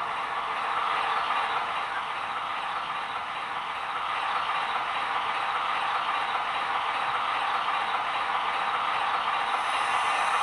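Factory sound decoder in a Roco H0 model of a ČSD T752 diesel locomotive playing its diesel engine sound through the model's small speaker: a steady, thin, rattly running noise.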